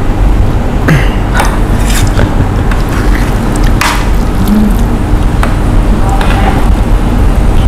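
Steady low background rumble with several short, sharp clicks and knocks scattered through it.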